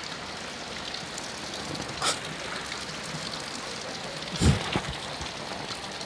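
Steady rain falling on a flooded street, an even hiss of drops hitting standing water. A sharp tap comes about two seconds in, and a louder low thump about four and a half seconds in.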